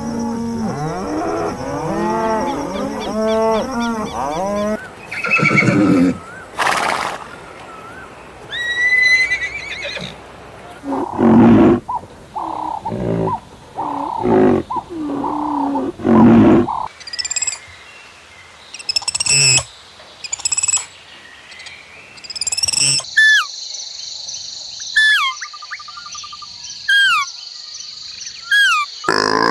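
A series of different animal calls following one another, changing every few seconds. The last few seconds hold short, falling, bird-like chirps over a steady high tone.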